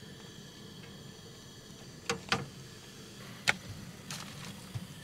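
A few sharp clicks and knocks of cookware on a camp stove, about two seconds in, again just after, and a louder one about three and a half seconds in, with fainter taps near the end, over a low steady hum.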